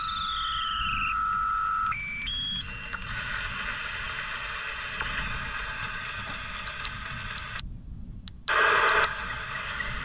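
Shortwave radio receiver hiss and static from an 11-metre CB transceiver's speaker while it is tuned on sideband: carrier whistles hold, glide down and then step up in pitch as the frequency is changed. Near the end the audio cuts out briefly and returns as a louder burst of hiss as the set is switched to AM.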